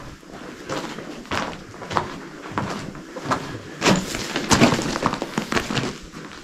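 Footsteps crunching and scraping over loose stones and rubble on a mine tunnel floor, irregular steps with louder knocks of stone about four seconds in.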